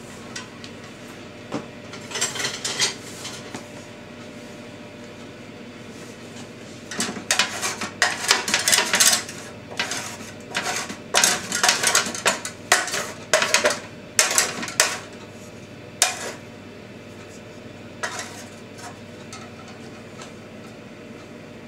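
Spatula scraping the bottom of a metal roasting tin in repeated quick strokes, loosening the browned roasting bits. The scraping comes in bursts, busiest through the middle, with a few lone strokes near the end.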